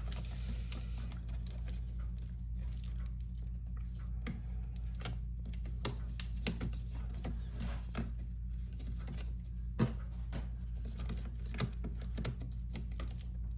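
Scattered light clicks and taps of small plastic and metal laptop parts being handled, a dozen or so spread irregularly, as the cooling fan is fitted back into the laptop. A steady low hum runs underneath.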